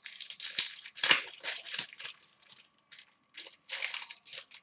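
Crinkling and crackling of a trading-card pack wrapper being handled, in quick irregular bursts, loudest about a second in.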